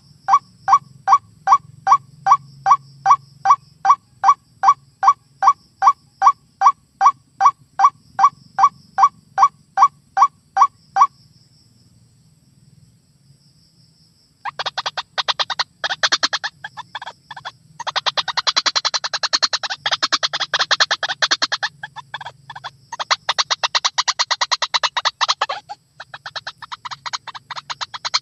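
White-breasted waterhen (ruak-ruak) calls from a lure recording. First a steady series of repeated call notes, about two or three a second, for some eleven seconds. Then, after a pause of a few seconds, a fast chattering chorus in several long bouts.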